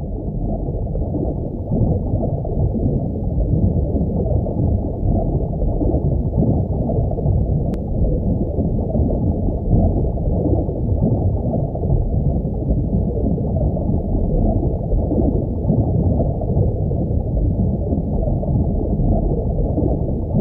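Steady underwater ambience: a muffled, low rumble of moving water with nothing high-pitched in it.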